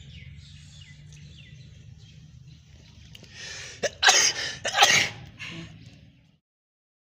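Two loud sneezes about a second apart, each preceded by a short breathy intake, over faint bird chirps.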